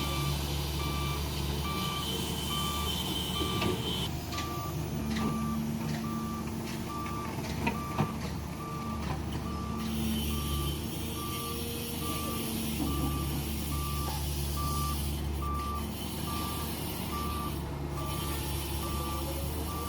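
A reversing alarm beeping steadily, about twice a second, over the steady running of a heavy diesel machine's engine at the sand-loading site. A few sharp metal knocks, the loudest about eight seconds in.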